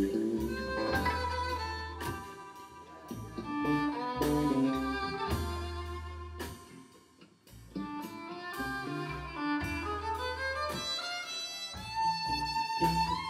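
Live blues band playing an instrumental passage: a lead melody with sliding, bending notes over plucked upright bass and acoustic guitar on a steady beat. The music drops back briefly about halfway through.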